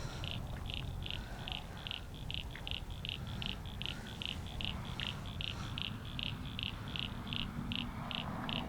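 A frog calling steadily, a string of short high-pitched notes repeated about three times a second, over a low continuous rumble.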